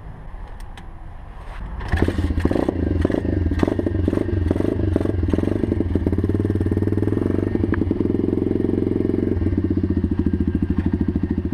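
A few clicks and clatter, then a single-cylinder four-stroke pit bike engine starts about two seconds in and settles into a steady, evenly pulsing idle.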